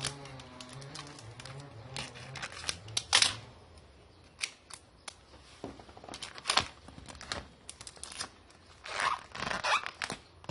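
Scissors snipping and packing material being torn and crinkled while a parcel is wrapped: irregular sharp clicks and snips, with longer tearing rustles about three seconds in and again near the end.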